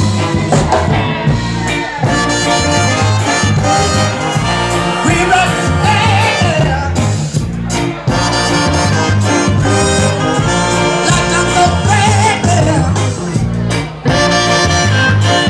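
A live ska band playing loud, with singing over a steady, pulsing bass beat.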